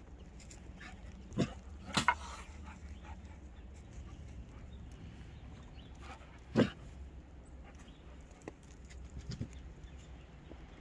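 Aussiedoodle puppy barking in a few short single barks: one about a second and a half in, two close together at about two seconds, a loud one about six and a half seconds in, and softer ones near the end.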